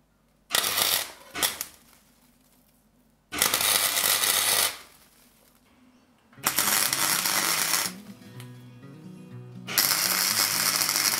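MIG welder arc crackling in separate bursts, the last two about a second and a half each, as a steel bracket is welded. Background music plays under the later bursts.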